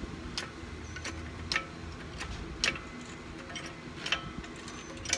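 Hydraulic floor jack being pumped to compress a rear strut: a sharp metallic click with each stroke, about once a second, irregular.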